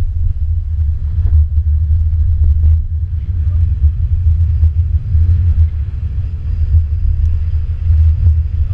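Subaru Crosstrek driving off-road over dirt and mud, a loud, steady low rumble from the car with occasional faint knocks.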